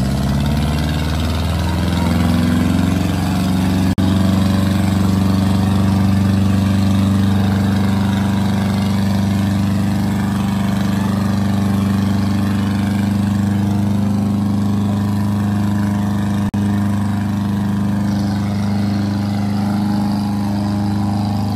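Tractor diesel engine straining at high revs under heavy load in a tochan tractor tug-of-war. The engine note climbs over the first couple of seconds, then holds steady, with two momentary dropouts.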